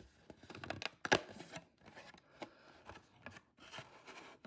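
Cardboard trading-card hobby box being opened by hand: the lid is pulled up and the cardboard rubs and scrapes. There is a sharp snap about a second in.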